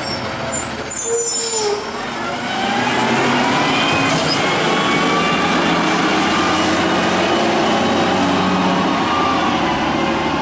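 Automated side-loader garbage truck's diesel engine as it pulls away. A high brake squeal and hiss in the first two seconds, then the engine climbs in pitch as it accelerates and runs steadily loud.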